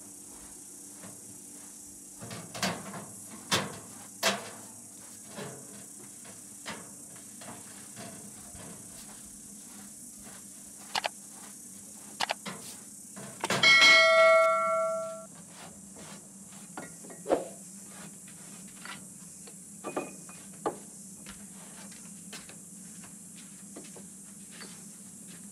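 Kitchen clatter: scattered clicks and knocks of dishes and utensils being handled over a steady low hum. Just past the middle, a metal vessel rings out once for about a second and a half, the loudest sound.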